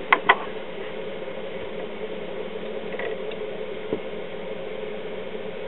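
Two sharp clicks just at the start, then a steady low hum and hiss of workshop room noise with a few faint ticks.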